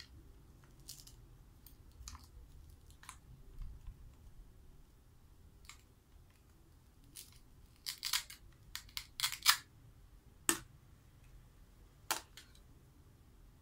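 Plastic toy-food pieces clicking and clattering as they are handled and pulled apart: scattered light clicks, a quick run of louder rattling clicks about eight seconds in, then two sharp single clicks.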